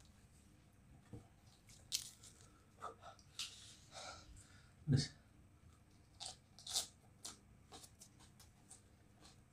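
Close-up chewing and biting of crisp raw vegetables: irregular crunches and mouth sounds, the loudest crunch about five seconds in.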